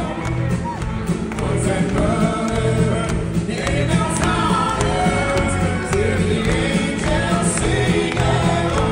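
A live country band plays while a man and a woman sing together into microphones, with electric guitar in the band.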